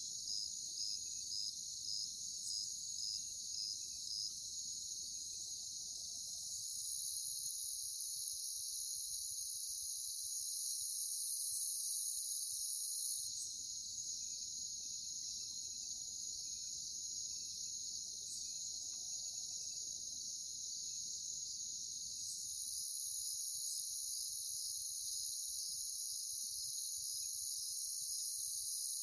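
Chirping insects: a steady, high shrill chorus with an evenly pulsing chirp, joined by a second, even higher continuous buzz that comes in about six seconds in, cuts off abruptly near the middle, and returns about two-thirds of the way through.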